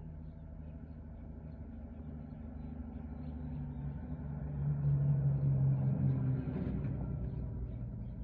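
Ambulance van's engine approaching and drawing up close, its low hum growing louder to a peak about halfway through, then easing as it slows and pulls in.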